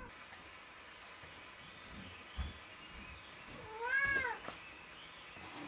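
A domestic cat meowing once, about two-thirds of the way through: a single call that rises then falls in pitch.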